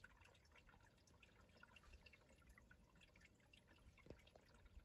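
Faint, irregular dripping of meltwater from melting icicles into a shallow pool.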